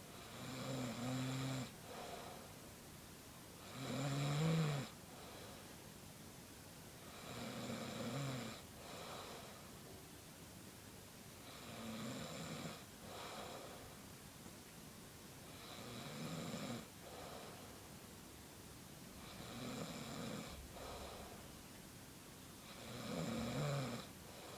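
A man snoring heavily in his sleep: seven loud, low snores about every four seconds, each followed by a shorter, softer breath.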